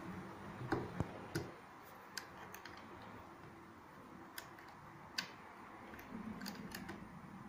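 Allen key clicking against the screws and metal of a small CNC mill's head as they are undone: about nine light, irregular ticks spread over several seconds.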